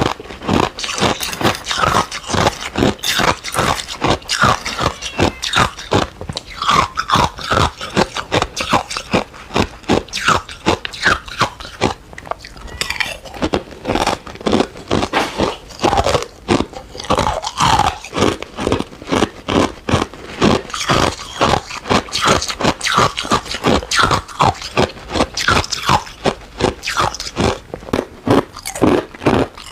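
Close-miked crunching of ice: hard clear ice and matcha ice being bitten and chewed, many sharp crunches a second.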